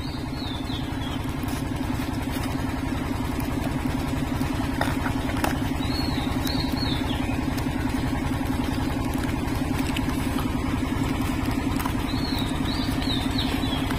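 A small engine idling steadily with a fast, even pulse. A short high chirping call comes three times, about six seconds apart.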